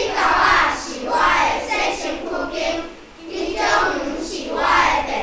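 A large group of children reciting aloud in unison from their books, a choral reading in phrases with short breaks between them.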